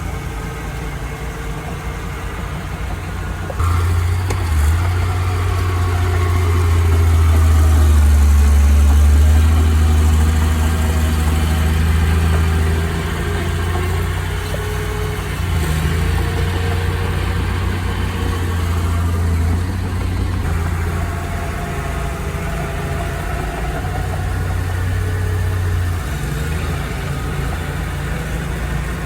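Heavy diesel engine of earthmoving machinery running and working under varying load, stepping up louder about four seconds in and easing back after about ten seconds, with its pitch rising and falling.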